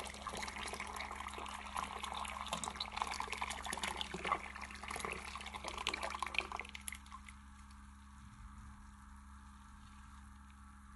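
Kashmiri tea concentrate poured in a stream into a pot of hot, frothy milk, splashing and bubbling. The pour thins and stops about two-thirds of the way through, leaving only a faint steady hum.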